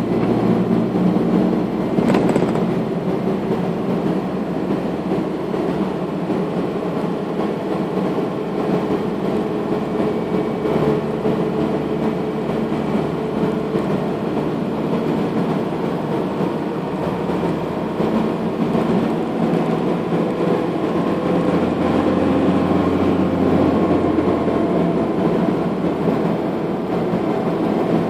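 Steady engine and tyre-on-asphalt road noise heard inside a moving car, with a single sharp knock about two seconds in.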